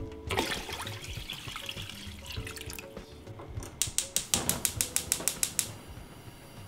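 Water running into a hammered copper pot, then a gas hob's spark igniter clicking rapidly, about eight clicks a second for nearly two seconds, until the burner lights.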